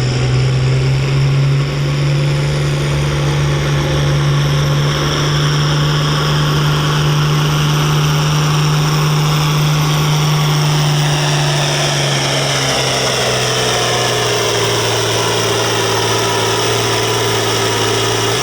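Farm-stock diesel tractor engine running flat out under load while pulling the weight-transfer sled, a loud steady drone. In the last third its pitch sinks slowly as the sled's load drags the revs down.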